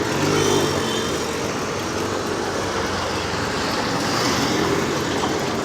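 Steady road traffic noise from passing motor vehicles, an even rumble and hiss with a faint engine hum in the first second.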